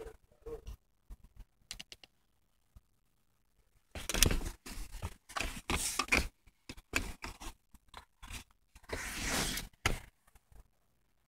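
Rustling and scraping handling noise from a phone being moved about against clothing and fabric, with scattered clicks. A few light clicks come first, then two longer stretches of rustling, the second near the end.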